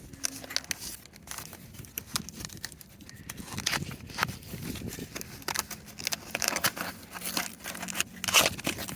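Cardboard box and packaging being handled and opened: irregular crinkling, tearing and clicking.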